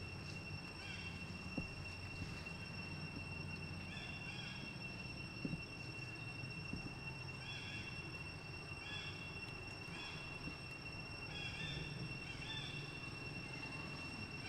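Outdoor ambience: a steady, high insect drone, with short chirping calls that repeat every second or so from a few seconds in.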